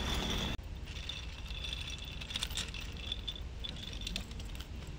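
Wheeled suitcases rolling over a concrete sidewalk: a low rumble with small rattles and clicks from the wheels. The level drops suddenly about half a second in.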